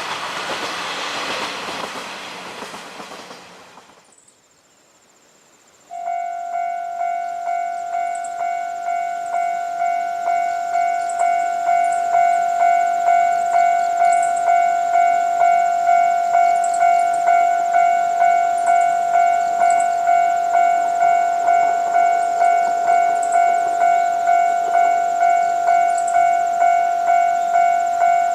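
A passing diesel train fades away during the first few seconds. Then, about six seconds in, a Japanese railway level-crossing alarm starts up: an electronic bell tone repeating a little over once a second, steady and unchanging, warning of an approaching train.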